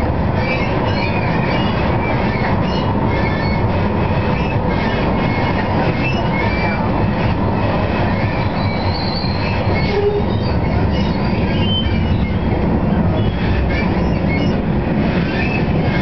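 Tram in motion, heard from inside the car: a steady rumble of wheels on rail with short high squeals from the wheels throughout.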